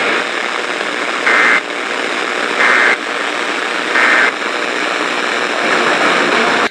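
Emergency Alert System end-of-message data bursts: three short two-tone warbling squawks about a second apart, over steady radio static hiss, marking the end of the warning broadcast.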